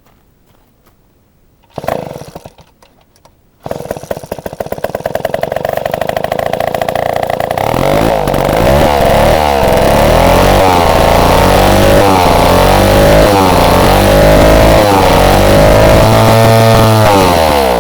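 1948 IEL Model AB two-stroke chainsaw engine being pull-started: it fires briefly once, then catches on the next pull about four seconds in and runs loudly. Its speed rises and falls again and again, and it winds down near the end; the owner says the carburetor needs cleaning.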